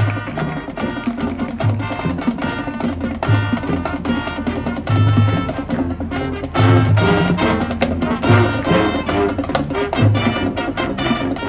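Marching band playing: sustained brass chords over a regular drum and percussion beat, growing louder about two-thirds of the way through.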